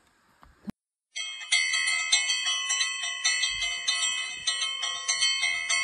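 Temple bells ringing, struck in a quick even rhythm of about three strikes a second so that their tones overlap. The ringing starts about a second in and cuts off suddenly near the end.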